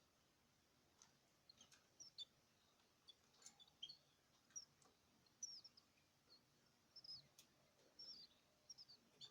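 Small caged birds chirping faintly: many short, high chirps scattered through, with a few sharp clicks among them.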